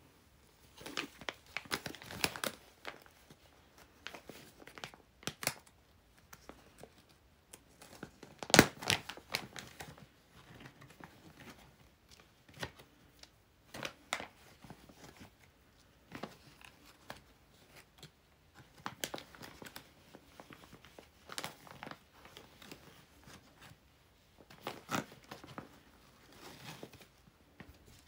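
Paper and lace scraps rustling and crinkling as they are handled and laid out on an envelope, in short scattered bursts with small taps, the loudest crinkle about eight seconds in.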